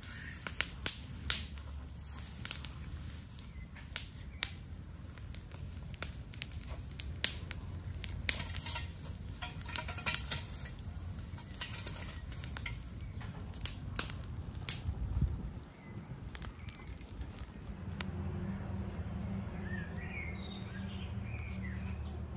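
Irregular sharp crackles and clicks for most of the stretch. After a brief dip, a steady low hum sets in, with birds chirping over it near the end.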